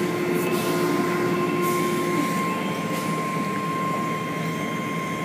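Automatic car wash tunnel machinery running: a steady mechanical drone with a constant whine, and a few brief hisses, like spray or air, at about half a second, just under two seconds and three seconds in.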